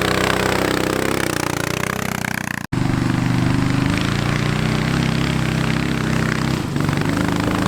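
Small 420cc single-cylinder engine with a header exhaust running on a homemade off-road kart, its speed rising about two seconds in. It breaks off for an instant at a cut, then runs on at a fairly steady speed with small changes.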